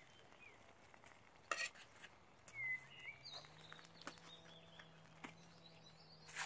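A few quiet clinks and scrapes as a folding shovel lifts foil-wrapped food packets out of campfire embers and sets them on a steel plate, the sharpest clink about a second and a half in and another at the end. Birds chirp briefly in between.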